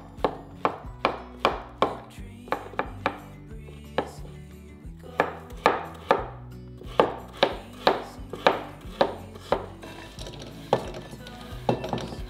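Broad-bladed kitchen knife chopping mushroom stems and vegetables on a wooden cutting board: sharp knocks of the blade on the board, about two a second, with two short breaks.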